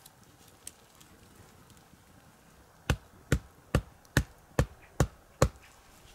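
Seven quick, evenly spaced chopping strikes, a little over two a second, starting about three seconds in.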